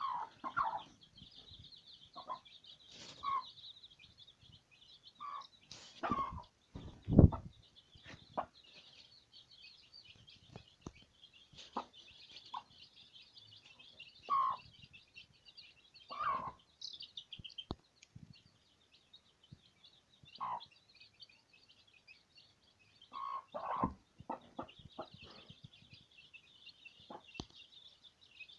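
Aseel chicks peeping steadily and high-pitched, with an Aseel hen clucking in short separate calls every second or few. A loud thump comes about seven seconds in.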